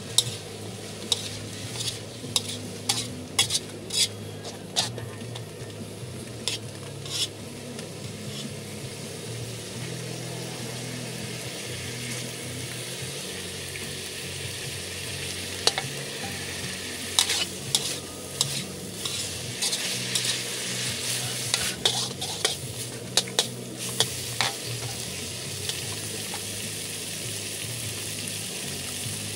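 Vegetables stir-frying in a hot oiled pan, with a steady sizzle and a metal spatula clicking and scraping against the pan in bursts, busiest in the first few seconds and again past the middle.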